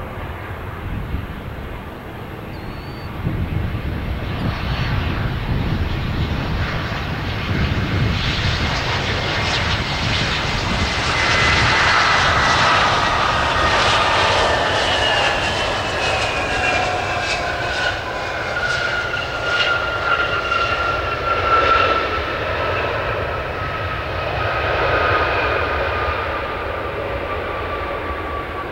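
Airbus A320-200's twin IAE V2500 turbofans on a landing approach, passing close by: the engine noise builds to a peak about halfway through, with whines gliding down in pitch as the jet goes past, then carries on as it rolls out down the runway.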